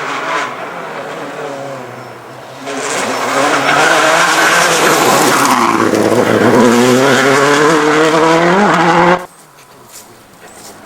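Turbocharged flat-four engine of a 2006 Subaru Impreza WRX STI rally car driven hard, getting loud about three seconds in, its revs dipping and then climbing again, with tyre noise. The sound drops off suddenly near the end.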